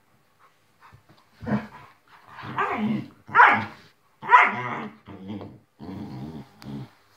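Two dogs, a borzoi and a yellow Labrador retriever, growling and barking at each other while they wrestle in play. A string of growls starts about a second and a half in, with the loudest barks a little past the middle, then lower rumbling growls near the end.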